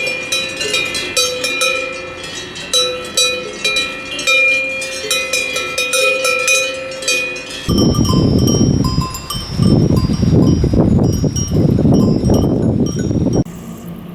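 Cowbells on grazing livestock clanking unevenly, several bells of different pitch overlapping. About eight seconds in, the sound changes abruptly to a loud rough rushing noise with bells still ringing through it, which drops away suddenly a little before the end.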